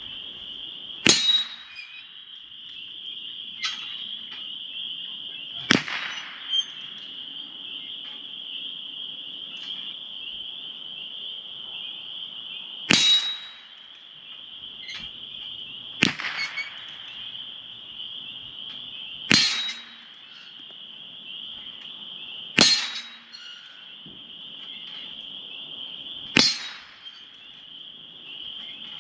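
Seven single .22 LR gunshots, a few seconds apart, fired at a steel swinger target; some are followed a moment later by a fainter sharp tap. A steady high insect drone runs under them.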